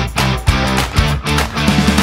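Background music with a steady beat, about two drum hits a second over a sustained bass line.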